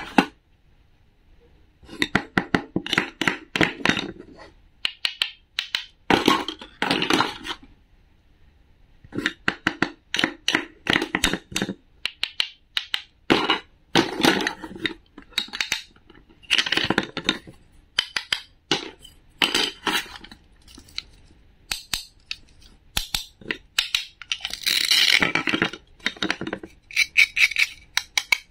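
Wooden toy food pieces and a wooden toy knife clicking, knocking and scraping on a wooden cutting board, in short clusters every second or two, with a longer run of scraping and rattling near the end as the toy pieces are handled and pulled apart.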